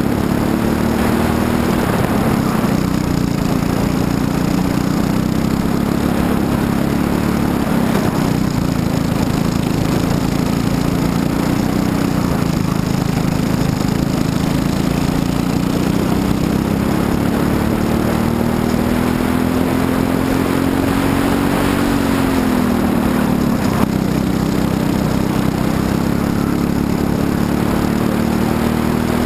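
Briggs & Stratton LO206 single-cylinder four-stroke kart engine running at race pace, heard on board. Its note rises and falls with the laps, climbs slowly along a straight, dips sharply about three-quarters of the way through and then climbs again.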